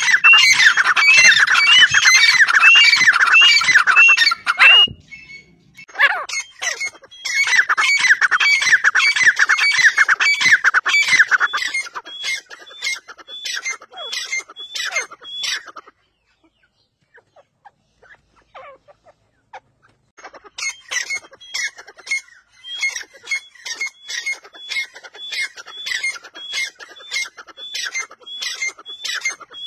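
A pair of grey francolins calling: loud series of short, rising, ringing notes repeated about three a second. The calls come in bouts, with a short break about five seconds in and a near pause around the middle, and the last bout is fainter.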